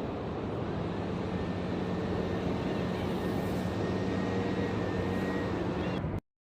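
Steady motor drone with a low hum, and a few faint short bird calls over it; the sound cuts off suddenly a little after six seconds in.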